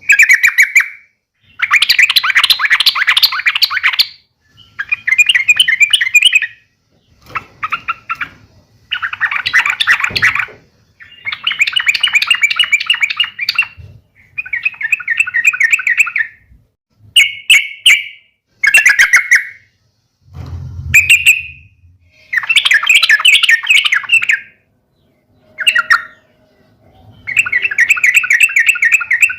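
Yellow-vented bulbul (trucukan) singing its excited fighting-style song: a dozen or so bursts of fast, bubbly chattering notes, each one to two seconds long, with short pauses between.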